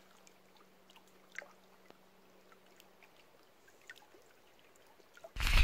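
Faint water sounds around a kayak on a lake: scattered soft drips and trickles, with a faint steady hum over the first few seconds. Near the end a loud, low rushing noise cuts in abruptly.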